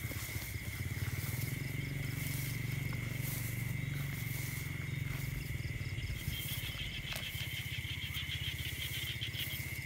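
Night insects calling: one steady high-pitched insect tone throughout, joined a little past halfway by a second, pulsing trill that stops just before the end, over a low steady rumble.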